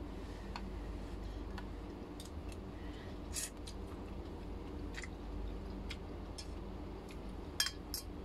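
Chewing food, with scattered sharp clicks of a spoon and fork against a glass plate, two of them loudest near the end, over a low steady hum.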